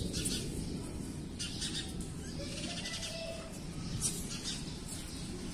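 Puppies play-wrestling, one giving a short high whimper about two and a half seconds in, with a few brief scuffling clicks over a steady low rumble.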